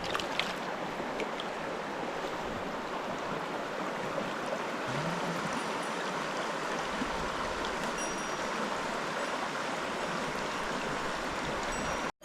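Mountain stream water rushing steadily over rocks, with a few faint ticks.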